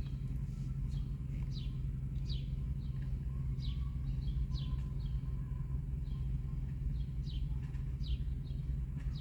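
A small bird chirping over and over, short falling chirps coming every half second to a second, over a steady low hum.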